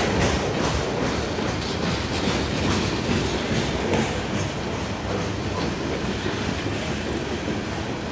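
Freight cars of a long mixed freight train rolling past: a steady rumble with wheels clicking over the rail joints.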